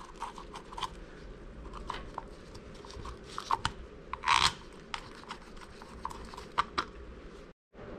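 Irregular light clicks and taps of small bolts and metal parts being handled, with a short rustle about four seconds in, as gloved hands fit the two 8 mm bolts of the power valve cover.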